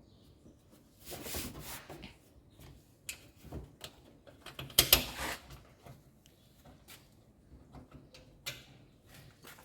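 Dryer front panel being handled and fitted into place: scattered knocks and a scrape, with the sharpest knock about five seconds in.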